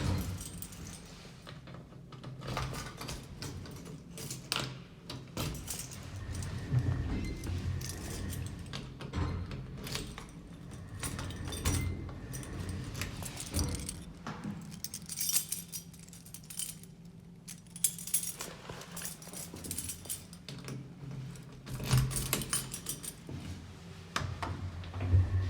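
2010 ThyssenKrupp elevator running, with irregular rattling and clicking over a steady low hum: the strange noises this lift makes.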